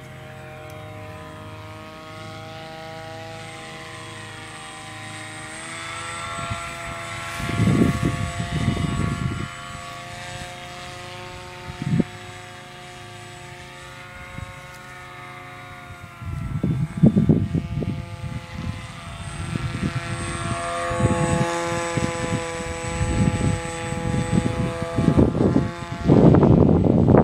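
Brushless electric motor and propeller of a blended-wing-body RC plane whining in flight, its pitch stepping up a few seconds in, dropping back about halfway and rising again. Gusts of wind rumble on the microphone several times, loudest near the end.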